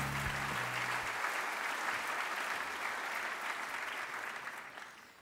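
A large audience applauding, the clapping fading out near the end. The low notes of closing music stop about a second in.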